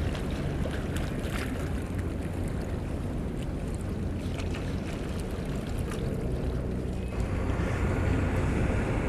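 Steady wind buffeting the microphone over open water, with water lapping around a small boat. About seven seconds in the sound turns louder and hissier.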